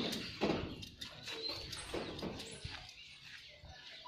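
Faint animal calls amid short rustles and scuffs on dry leaf litter.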